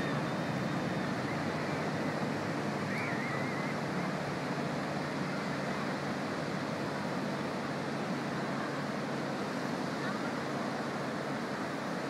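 Pacific Ocean surf breaking on a sandy beach: a steady, even rushing wash of waves.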